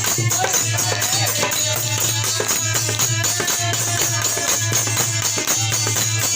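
Devotional bhajan music: a quick steady beat of jingling hand percussion under a wavering melody line.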